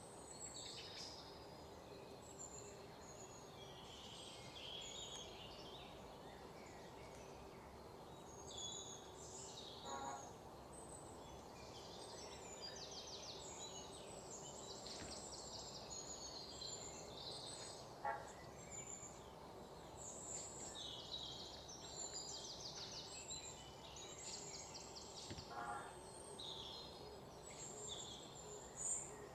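Small birds chirping and twittering over a faint steady hum, with short rapid trills now and then. A brief run of quick ticks comes three times.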